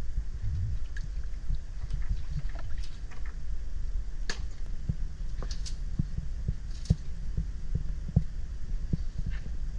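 Steady low rumble of wind on the microphone, with scattered soft knocks and clicks from a man moving about in a wooden dugout canoe and handling fishing line.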